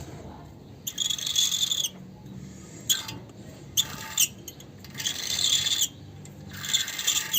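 Metal wear-indicator tab on a brake pad scraping against the front brake disc as the disc is turned by hand, in about five high, screechy rubs. The tab touching the disc is the cause of the wheel's squeak.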